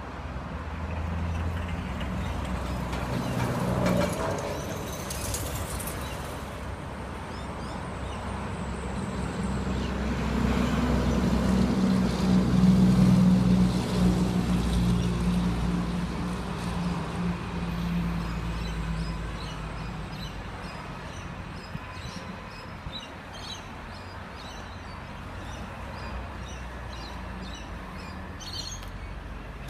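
A car engine running steadily, swelling louder for a few seconds around the middle, with birds chirping in the later part.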